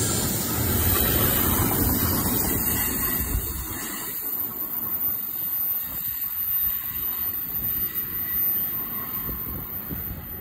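Double-stack intermodal well cars of a freight train rolling past close by, a steady rumble and clatter of wheels on rail that eases off about four seconds in as the end of the train moves away.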